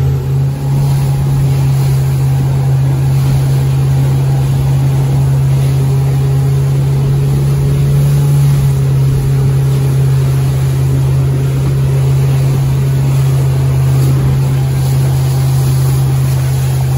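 Small boat's outboard motor running at a steady cruising speed, a constant low drone, with water rushing and spraying off the hull.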